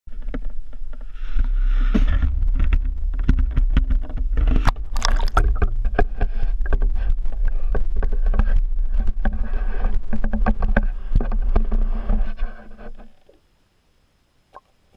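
GoPro HERO3 Black in its waterproof housing being handled on a wooden pole and pushed down into the water of an ice-fishing hole: heavy rumbling handling noise with many knocks and scrapes. It stops suddenly about thirteen seconds in, once the camera is settled underwater.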